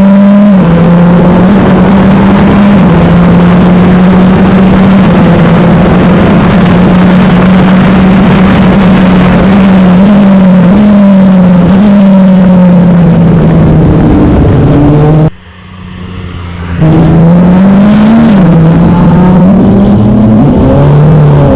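Wolf GB08 sports-prototype race car's engine running hard at high revs over heavy wind and tyre noise, its pitch mostly steady with small dips and rises as the throttle and gears change. About three-quarters of the way through the sound drops out abruptly for a second and a half, then comes back with the engine pulling up in pitch.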